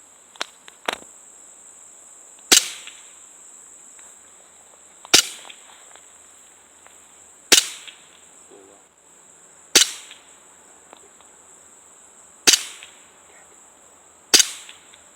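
BB pistol firing six sharp shots, about one every two and a half seconds, with two faint clicks shortly before the first. A steady high insect buzz runs underneath.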